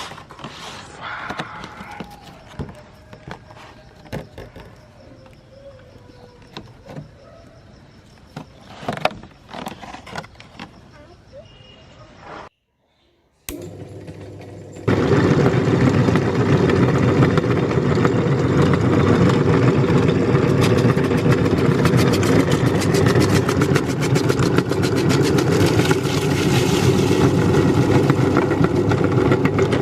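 Faint scattered clicks and knocks of handling. Then, after a brief silent gap about halfway, a meat grinder runs loudly and steadily, with a dense crackle of hard candy being ground.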